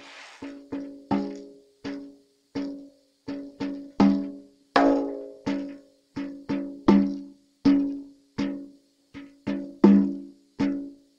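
Ocean drum struck with a beater in a slow, uneven beat of about two strokes a second, each stroke ringing with a low pitched tone that dies away before the next.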